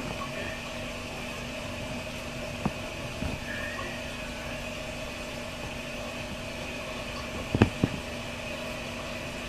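Steady background hum and hiss, with a few brief knocks, the loudest a quick pair about three-quarters of the way through.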